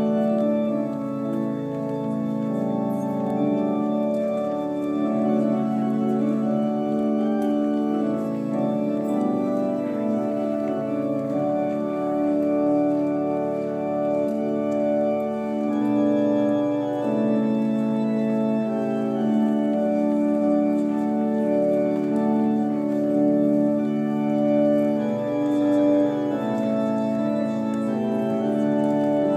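Organ playing a slow wedding processional in long held chords that change every few seconds.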